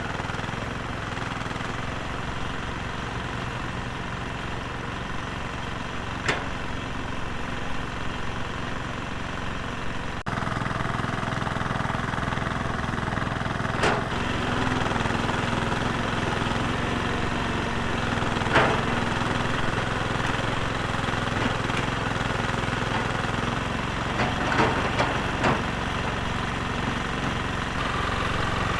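Volvo excavator's diesel engine running steadily, with a handful of sharp knocks and clanks scattered through, a few close together near the end.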